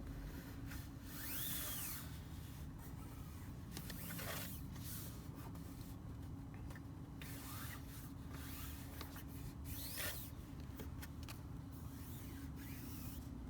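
Plastic card rubbing and scraping over a vinyl sticker on a car door, pressing the edge down in a series of short strokes. A steady low hum runs underneath.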